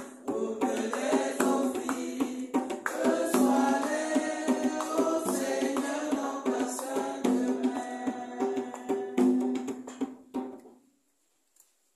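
A church hymn sung by voices with tambourine and drum accompaniment, the sharp hand-percussion strikes running through the singing. The music stops near the end.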